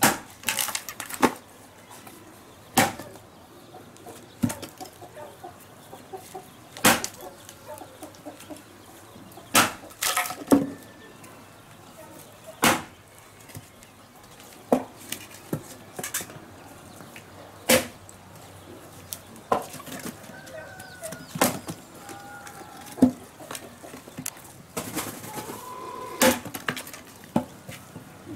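Axe blows splitting firewood on a wooden chopping block: sharp cracks every one to three seconds. Chickens cluck faintly between the blows.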